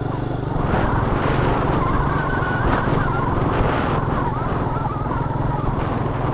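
Honda Astrea Star motorcycle's small single-cylinder four-stroke engine running steadily with wind rush, while the rider whistles a wavering tune over it from about a second in.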